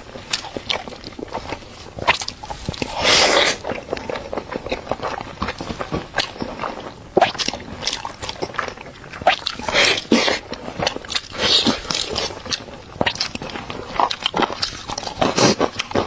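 A person eating close to the microphone: irregular bites, crunches and wet mouth smacks, with a longer rustling crunch about three seconds in.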